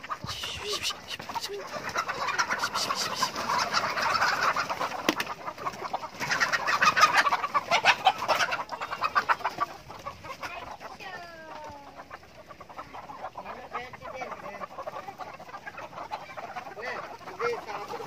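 A large flock of country chickens, hens and roosters, clucking and calling over one another, busiest and loudest through the first half, with one longer call falling in pitch a little after the middle.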